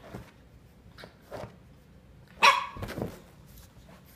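Boxer dog barking: one sharp bark about two and a half seconds in, with a few fainter short sounds around it.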